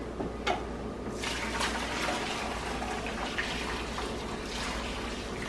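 Hot water poured from a stainless steel pot over metal mesh range hood filters in a sink, a steady splashing pour that starts about a second in, after a light knock.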